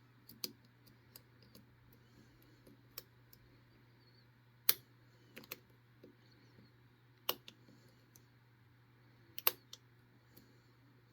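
Lock picking in a Master Lock 930 round-body padlock's five-pin core: small, sharp, irregular metal clicks of the pick and tension wrench as the pins are worked, with three louder clicks.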